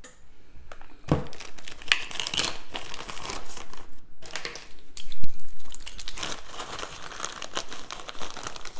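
Plastic bag of brown sugar crinkling and rustling as it is opened and handled for scooping, with one louder bump about five seconds in.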